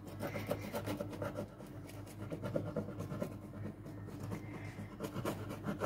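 Long kitchen knife sawing back and forth through a baked sponge cake, a run of quick scratchy strokes as the blade rasps through the crust.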